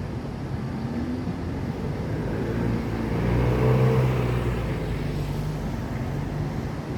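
A motor vehicle's engine passing by: it grows louder to a peak about halfway through, then fades away, over a steady traffic hum.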